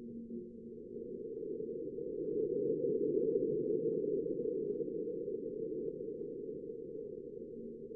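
Sonified seismometer signal from NASA's InSight lander of a likely marsquake: ground vibration made audible as a low, noisy rumble that swells to its loudest about three seconds in and then fades, with a few faint crackles near the peak.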